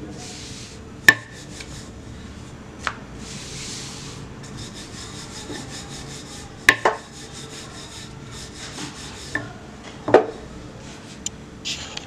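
Wooden rolling pin rolling out dough on a board, a rubbing, rolling sound, broken by three sharp knocks.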